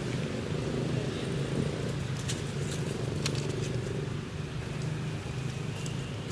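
Steady low engine hum, like a motor vehicle running nearby, with a few faint clicks about two to three seconds in.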